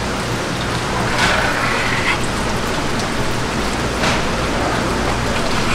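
Steady water-like hiss, like rain or running water, with a low hum beneath it; a brief higher-pitched sound rises out of it about a second in, and a short sharp tap comes about four seconds in.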